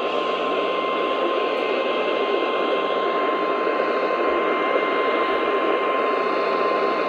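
NOAA Weather Radio 1050 Hz warning alarm tone, sounded as a test of the warning device: one steady high-pitched tone held without a break over receiver static hiss.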